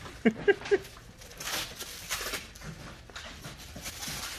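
White plastic shipping wrap being pulled and peeled off a trailer, crackling and rustling in several bursts. Near the start there are a few short pitched sounds.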